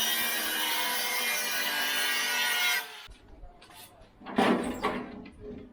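Power tool cutting through the go-kart's steel frame tubing, a steady harsh cutting noise that stops abruptly about three seconds in. Then a few loose knocks and clatter of metal being handled.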